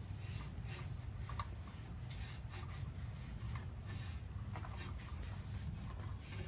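Socket wrench on an extension tightening an oil drain plug into the oil pan: faint, irregular scraping and light clicks over a steady low hum.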